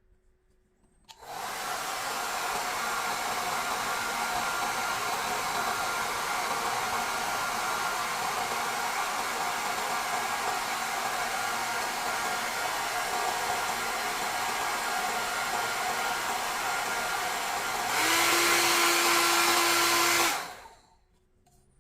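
Xiaomi CMJ01LX3 1800 W hair dryer switched on and running with a steady airflow whoosh and faint motor whine. Near the end it grows louder with an added steady tone, then is switched off and winds down.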